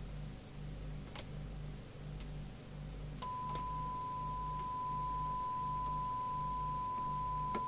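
A low pulsing hum and a few clicks, then about three seconds in a steady pure test tone near 1 kHz comes in and holds: the signal generator's modulation tone heard through the CB receiver as its squelch opens on the test signal.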